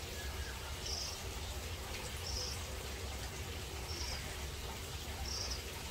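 Short high chirps from a small animal, repeating evenly about every second and a half, over a steady low rumble.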